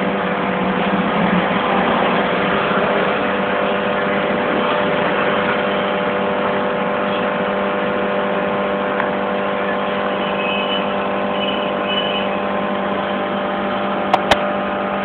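Aquarium aeration running: a steady electric hum from the air pump under the bubbling of an air stream rising through the tank water. Two sharp clicks near the end.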